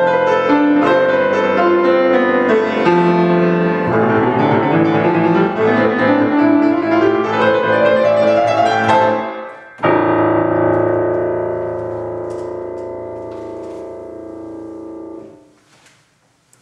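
Solo piano playing a busy passage that climbs in a rising run, then a final loud chord about ten seconds in, held and slowly fading until it is damped off suddenly near the end. A few faint knocks follow.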